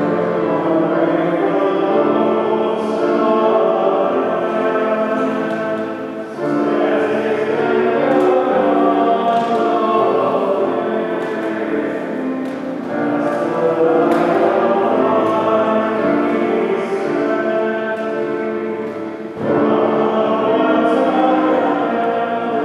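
A church choir sings a hymn in long phrases, with a brief break between phrases about 6, 13 and 19 seconds in.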